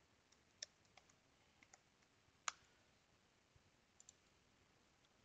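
Faint computer keyboard keystrokes and mouse clicks: a few scattered taps over the first two seconds, a sharper click about two and a half seconds in, and a quick pair of clicks about four seconds in.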